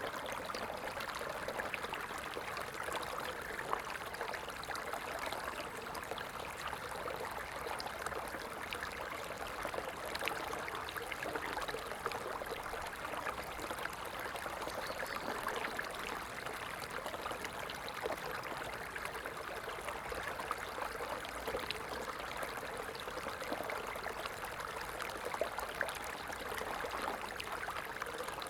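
Stream water running steadily over stones, a continuous babbling and splashing.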